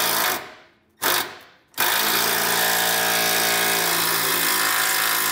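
Power drill driving a self-tapping screw up into a truck's frame rail, run in short passes until it snugs up: two brief bursts about a second apart, then a steady run from about two seconds in.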